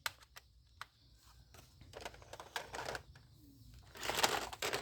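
Plastic toy gun being handled: a few small sharp clicks in the first second, then rustling handling noise about two seconds in and again, louder, near the end.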